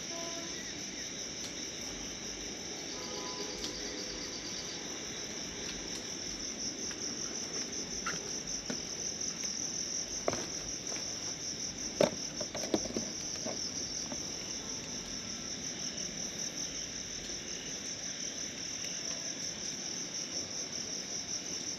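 Crickets chirring steadily in a high, finely pulsing trill. A few sharp snaps or knocks come through about halfway, as someone moves through dry brush.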